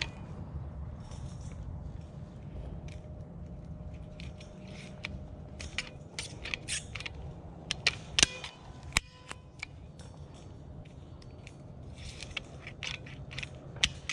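Hand-squeezed cable-tie gun tightening zip ties onto chain-link fence: a run of sharp clicks, bunched between about five and nine seconds in, and more near the end.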